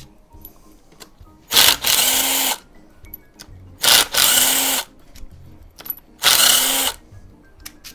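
Cordless impact driver backing out bolts on a Porsche M96 engine: three bursts of hammering, each about a second long and ending in a short rising whine.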